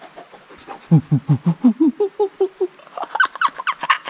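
A man's voice giving a rapid string of short pitched calls, about five a second, rising from low to high pitch toward the end.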